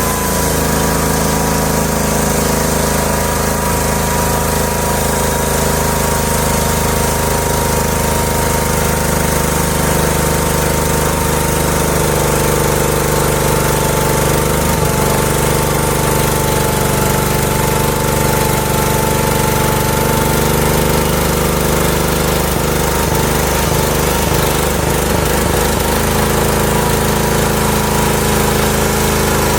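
Homemade sawmill running, its small engine a steady drone under a high whine that slowly falls in pitch as the blade saws through a black locust log.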